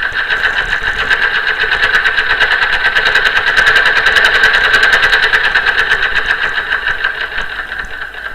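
Vintage Husqvarna Viking sewing machine running steadily at speed, with a rapid, even clatter from the needle mechanism.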